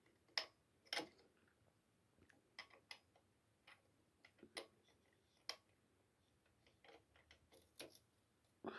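Faint, irregular clicks and taps of a hand tool working on a bicycle crank's fixing bolt as it is turned anti-clockwise to loosen it, about eight light strikes spread unevenly.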